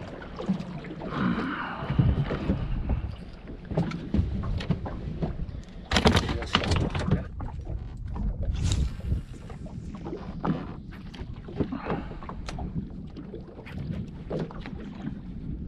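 Wind rumbling on the microphone over water lapping, with irregular knocks and clatters throughout, loudest about six seconds in.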